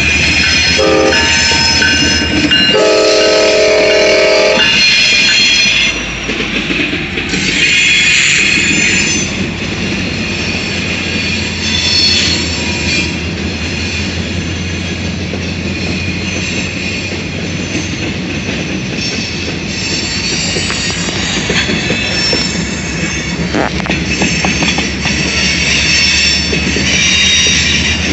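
Freight locomotive's Nathan K5LA five-chime air horn sounding a short blast about a second in, then a longer blast of about two seconds. After that the train keeps rolling by, with steady rumble and high wheel squeal on the rails.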